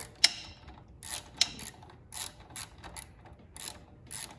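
13 mm socket ratchet clicking in a series of short strokes as it tightens the nut on a battery-cable terminal, with two sharp metallic clinks about a quarter second and about a second and a half in.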